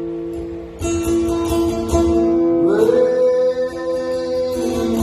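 Slow background music of sustained chords, with new notes struck about a second and two seconds in, and a note that slides up and is held for nearly two seconds around the middle.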